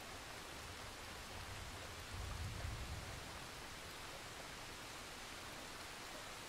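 Steady rain-like hiss, with a brief low rumble about two seconds in.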